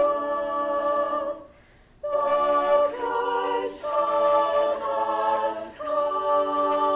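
A girls' choir singing a cappella in held chords, breaking off briefly about one and a half seconds in and then coming back in.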